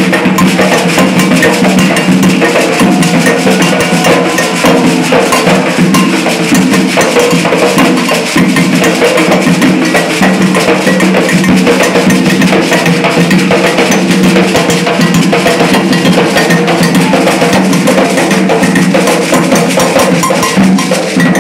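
Loud live Afro-Brazilian terreiro percussion music: drums and a metal bell keep a fast, unbroken beat while the crowd claps along.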